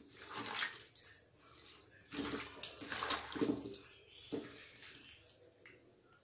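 A hand mashing and mixing marinated raw chicken with chopped onions in a steel bowl: wet mixing sounds in uneven spells with short pauses, fading out near the end.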